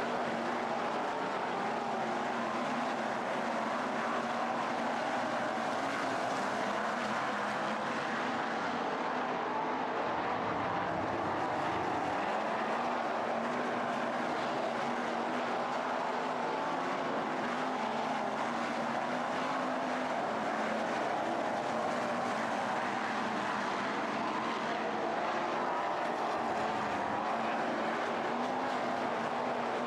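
A pack of 410 winged sprint cars racing, their 410-cubic-inch V8 engines blending into a steady, unbroken drone whose pitch wavers up and down as the cars go around the track.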